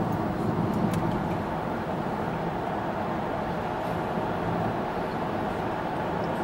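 Steady road noise inside a moving van's cabin: the hum of tyres and engine.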